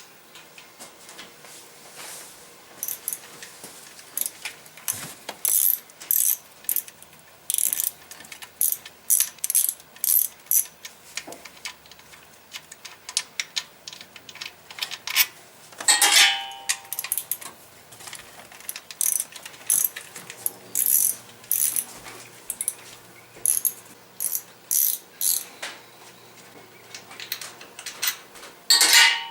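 Hand ratchet clicking in short runs as the fuel rail retaining bolts are backed out, with a couple of louder metal clinks that ring briefly, about halfway through and at the end.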